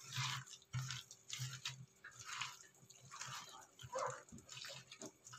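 Chopped banana, apple and pineapple being squeezed and mashed by hand in a glass bowl, an uneven run of soft wet squishes, about two a second.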